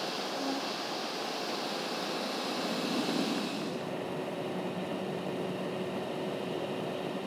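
Steady road and wind noise inside a truck cab driving at highway speed. About halfway through the sound turns duller, with a faint steady hum.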